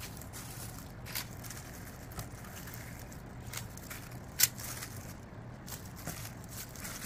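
Plastic-gloved hands handling raw shrimp and laying them in a stainless-steel pot, making soft rustles and scattered light clicks over a steady low hum. There is one sharper tap about four and a half seconds in.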